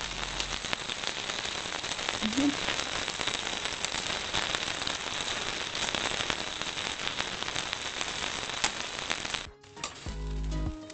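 Mackerel sizzling on a wire grill over glowing embers, a dense crackling with many sharp pops. About nine and a half seconds in it cuts off suddenly to background music.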